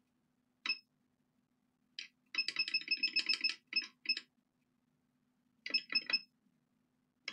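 Electronic button beeps from a soldering station as its temperature is set: a single beep, then another, then a fast run of about ten beeps as a button is held, then a few more short beeps. A faint steady hum runs underneath.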